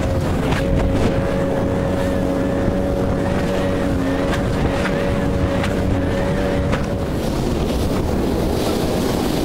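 Inshore lifeboat's outboard engine running under way at a steady pitch, under a loud rush of wind and water with a few sharp knocks. The engine note fades out about seven seconds in, leaving the rush.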